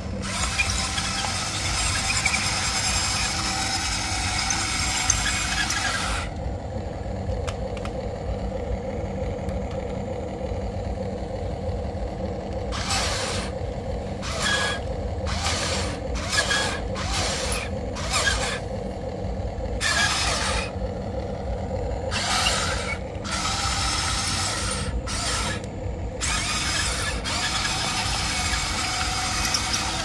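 Huina RC excavator's geared electric motors whirring with a ratchet-like rattle. It runs steadily at first; from about six seconds in it goes in short stop-start bursts over a lower whine.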